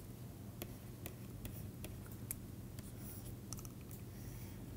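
Faint taps and scratches of a stylus writing on a tablet screen: irregular sharp ticks with a few short scratchy strokes, over a steady low hum.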